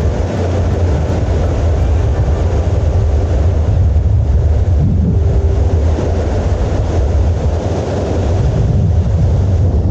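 Wind buffeting the camera microphone: a steady, loud, low rumble.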